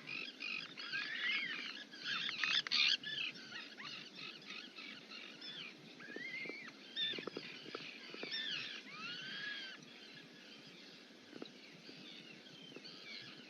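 Many birds calling at once: a dense chorus of short, overlapping arching chirps, busiest about two to three seconds in. A few soft knocks come about seven seconds in.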